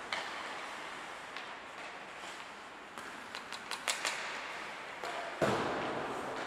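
Ice hockey play in an ice rink: sharp clacks of sticks on the puck and skate scrapes over a steady hall ambience, a quick cluster of clicks about three to four seconds in and a louder thud about five and a half seconds in.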